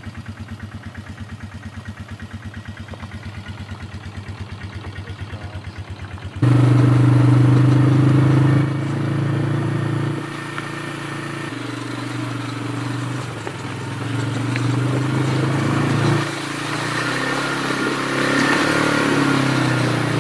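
A vehicle engine idling with an even, regular pulse. About six seconds in it switches abruptly to a much louder, steady engine run that shifts in pitch and level a few times, as when driving under way.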